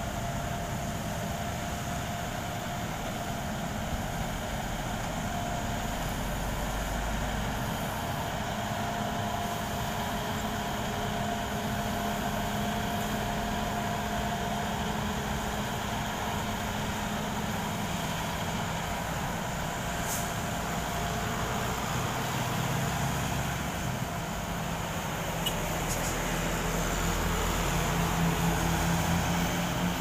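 Diesel engine of a tandem asphalt roller running steadily as the roller drives over fresh asphalt, mixed with passing road traffic. A deeper engine hum grows louder near the end.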